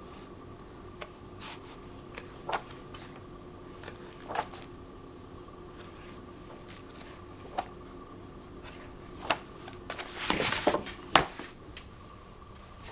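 Pages of a softcover photo book being turned by hand, a few soft paper flicks and rustles spaced a second or two apart. About ten seconds in there is a louder burst of paper handling with a sharp knock as the book is moved off the cutting mat.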